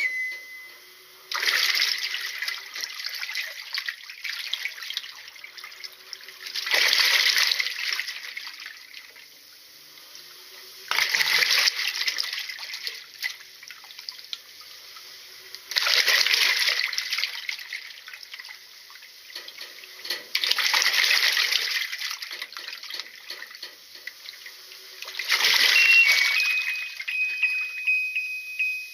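Washing machine churning water in its tub, with splashing swells about every four to five seconds as the drum or pulsator turns back and forth, and a faint hum between swells. A thin high tone sounds near the end.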